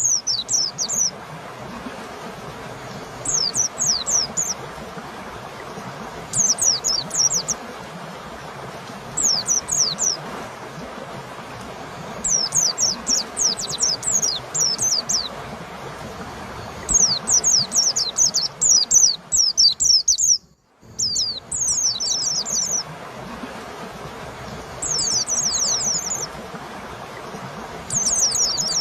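White-eye (pleci) singing: short bursts of rapid, high, down-slurred notes repeated every few seconds over a steady hiss, with a brief break in the sound about two-thirds of the way through.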